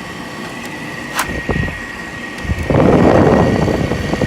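Window air conditioner running with a steady high whine from its worn bearings; about two and a half seconds in, a loud rush of air as the blower's discharge blows onto the microphone at the front grille.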